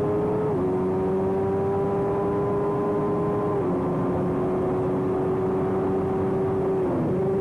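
Small-displacement race motorcycle engine running at speed, heard from on board the bike. Its pitch climbs slowly and drops sharply about half a second in and again about three and a half seconds in, as on gear changes, with a short dip and recovery near the end.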